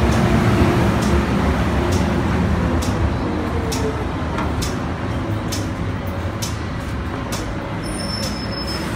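Hong Kong MTR M-Train electric multiple unit pulling into the platform and slowing to a stop: a rumble with a whine that falls in pitch as it brakes, and a run of wheel clicks. A brief high squeal sounds near the end as it halts.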